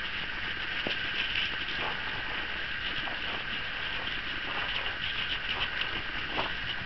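Light scattered ticks and taps of working cocker spaniel puppies' paws and claws on wooden decking and gravel, over a steady hiss.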